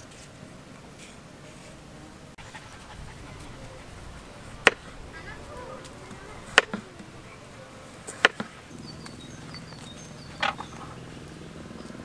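Three sharp knocks, roughly two seconds apart, then a softer one near the end, over a steady low background noise.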